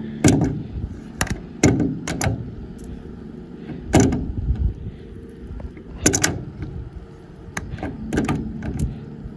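Irregular metallic clinks and knocks, about nine in all, some ringing briefly: tools and a threaded pipe fitting being handled while the fitting is tightened onto a solar panel's pipe.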